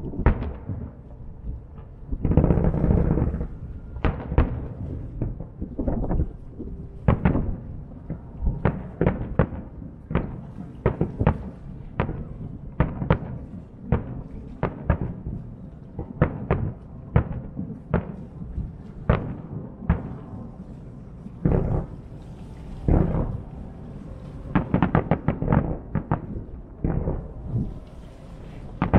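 Isogai Enka fireworks display: a rapid, irregular run of sharp booms and bangs from shells firing and bursting, several a second at its busiest. There are two short stretches of high hiss in the latter part.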